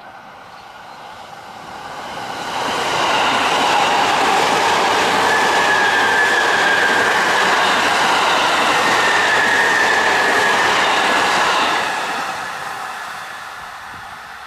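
JR East E657 series limited-express train running past on the near track. The rumble of its wheels on the rails builds over about three seconds, holds loud and steady, then fades near the end, and a thin high tone sounds twice in the middle.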